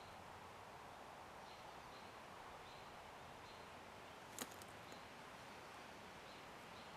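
Near silence of an open field: a faint steady background hiss with faint short high chirps repeating every second or so, and one sharp click about four and a half seconds in.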